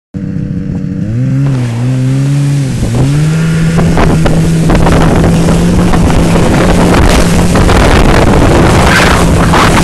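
Snowmobile engine revving up and down about a second in, then running at one steady pitch as it tows a sled away, with wind on the microphone and the rush of the sled over snow growing louder and some knocks from bumps.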